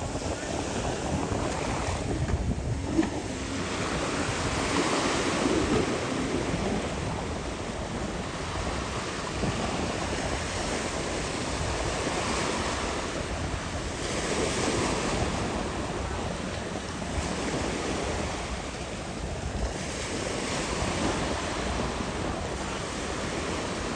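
Wind buffeting the microphone over open water, with waves washing and splashing; the rush swells and eases every few seconds.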